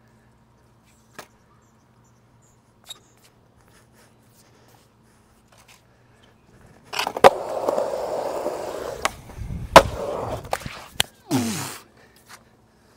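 Skateboard wheels rolling hard on concrete for several seconds, with a sharp clack about seven seconds in and a heavy slam about ten seconds in as the skater bails and falls. Before that, only a few faint clicks.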